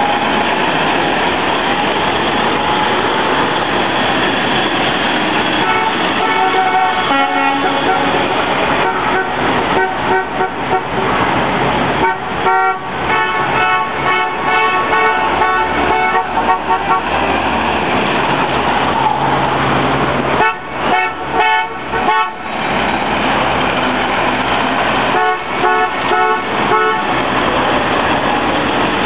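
Bookmobiles and library buses driving past with engines running, their horns tooted in quick repeated honks in several bursts, about four times.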